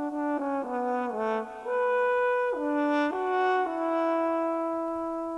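Instrumental closing music: a few sustained chords change, then the music settles on one long held note that slowly fades.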